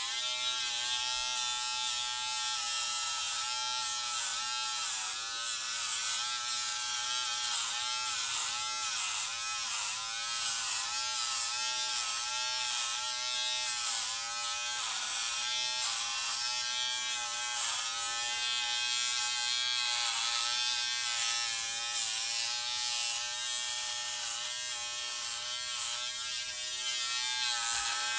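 Braun XT5 electric trimmer buzzing steadily as it is run through short head hair. Its pitch dips briefly over and over.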